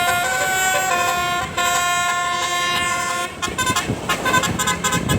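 Multi-tone 'telolet' bus horn playing held chords that step between notes, then from about three seconds in a rapid run of short, choppy toots.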